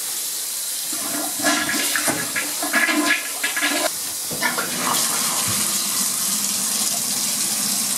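A toilet flushing for about the first four seconds, then a bathtub spout running a steady stream into the tub. Both are flushing chlorine-shocked well water through the house's water lines.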